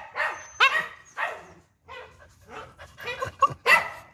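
Dogs yelping and whining in a string of short, excited calls with sliding pitch, the sound of dogs greeting their owner.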